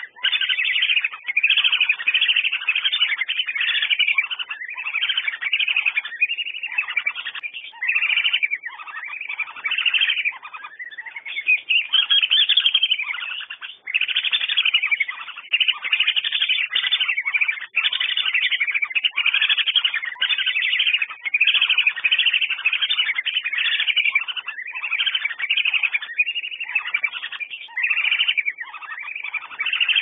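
Whistling ducks (Dendrocygna, belibis) calling: a dense, continuous run of short, high whistled calls with only brief gaps.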